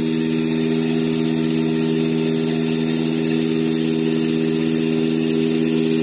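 CNC nesting router running with a steady hum of several low tones and a high hiss, unchanged as its spindle head travels over the table.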